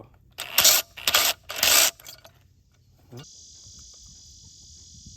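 Three loud, harsh bursts of noise in the first two seconds. A little after three seconds a steady, high insect chorus of crickets starts abruptly and carries on.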